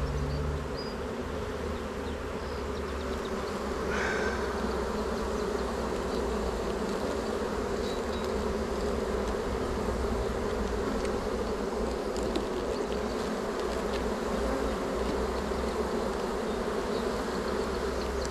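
Honeybees buzzing steadily in a dense, even hum from a colony swarming over opened hive frames.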